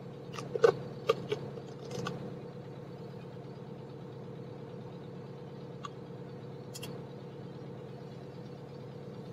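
Tracked excavator's diesel engine idling with a steady hum.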